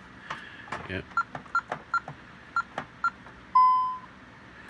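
Honeywell 6160 alarm keypad beeping as keys are pressed: five short beeps over about two seconds, then one longer, louder beep about half a second long.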